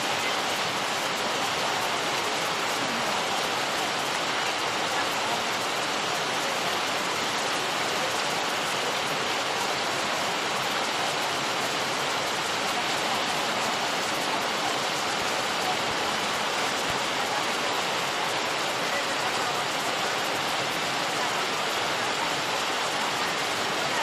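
River rapids rushing steadily over rocks: a loud, unbroken wash of white water.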